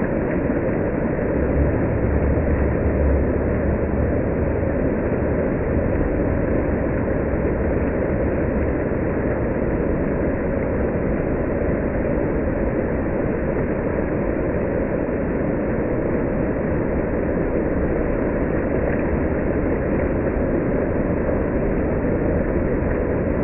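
Water fountain splashing steadily: a constant, even rush of falling water.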